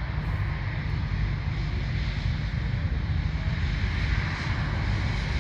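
Steady roar of a Boeing 777F's jet engines, under a low, fluttering rumble of wind on the microphone.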